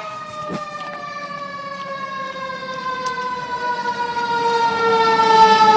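Fire engine siren wailing, its pitch falling slowly and steadily and growing louder near the end as the engine comes closer.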